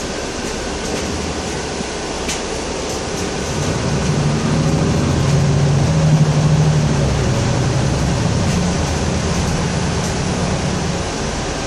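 Cabin noise of a Mercedes-Benz Conecto II city bus on the move: steady engine and road noise, with a low engine hum growing louder about four seconds in and easing off near the end.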